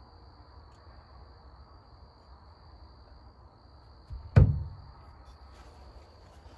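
A single heavy metal thump about four seconds in, with a small knock just before it, as the Honda XR250R fork leg clamped in the vise is tipped over and knocks against the workbench fittings. A faint steady hum with a thin high whine runs underneath.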